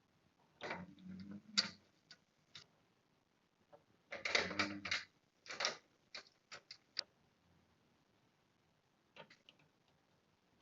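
Clusters of sharp clicks, taps and small metallic knocks from handling hardware in a desktop PC case while a graphics card is fitted and secured. The busiest clusters come about a second in and again around four to six seconds in, with a few single clicks after them.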